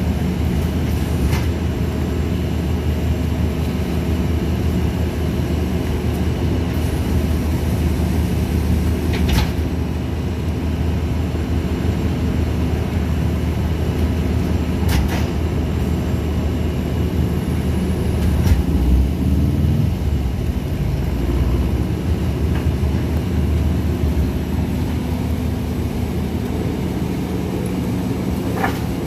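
International single-axle rear-loader garbage truck's diesel engine idling steadily, with a few sharp knocks of bags and bins being handled at the hopper.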